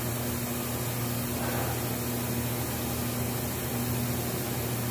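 Steady electric hum of an overhead bridge crane's hoist motor running while it lowers a heavy steel roof section, a constant low drone with a noisy hiss over it.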